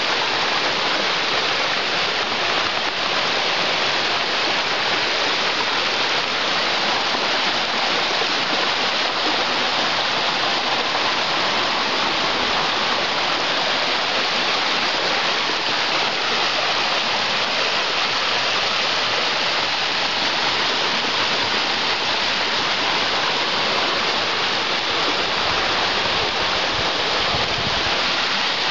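Stream water rushing steadily over a rock shelf close by, a constant, unbroken rush of flowing water.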